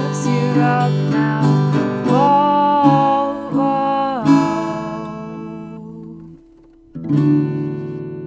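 Acoustic guitar strumming the closing chords of the song, under a long held sung note that then fades away. After a short near-silent pause, one last strummed chord is left ringing out.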